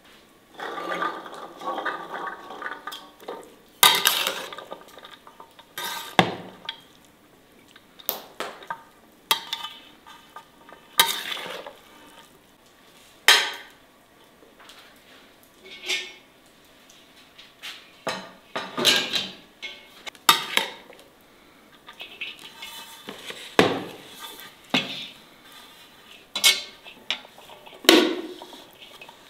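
A metal spoon clinks, knocks and scrapes against a large enamel basin in irregular strokes while rice and chickpeas are mixed in it. A softer rattle in the first couple of seconds comes as the chickpeas are tipped in.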